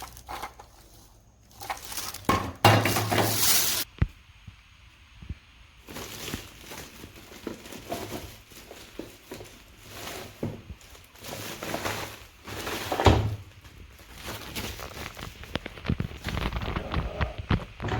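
Plastic vacuum-cleaner attachments and packaging being handled: irregular clicks, knocks and rustling, with a loud rustle of packaging a few seconds in.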